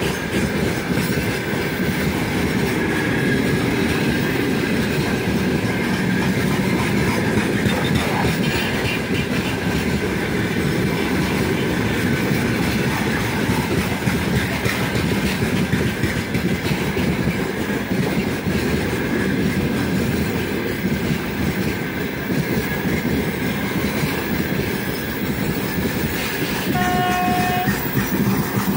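Freight train of open-top gondola wagons rolling past at speed: a steady rumble and clatter of wheels on the rails. Near the end a short train horn blast sounds, under a second long.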